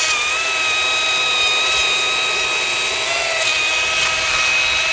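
STIHL battery-powered chainsaw cutting through a log, a steady high electric whine. The saw is resting in the cut and sinking through under its own weight rather than being pushed.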